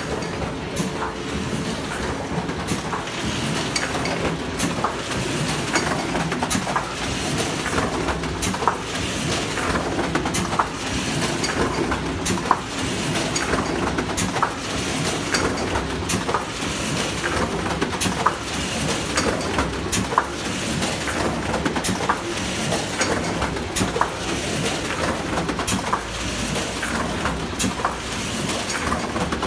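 A sheet-fed paper press running steadily, its cylinder and sheet feeder making a constant mechanical din with sharp clacks every second or so.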